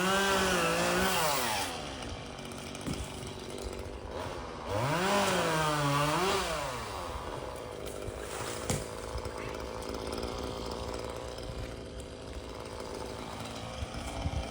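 Chainsaw revving up twice, each for about two seconds, its pitch climbing, wavering and falling away, with the engine idling in between and afterwards.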